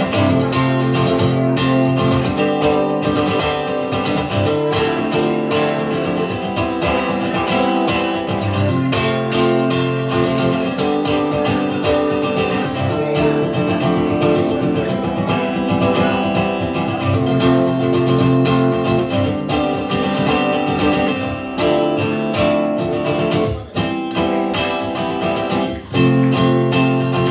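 Instrumental passage of a live song: strummed acoustic guitar playing changing chords, with no singing. There are a couple of brief breaks near the end.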